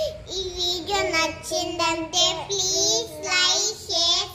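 Young girls singing together, unaccompanied, in sung phrases of held notes with short breaks between them.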